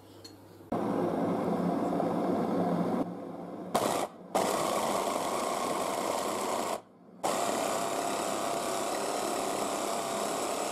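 Electric blender chopper running as it grinds raw chicken breast into mince, a steady motor whir run in several bursts with short stops in between.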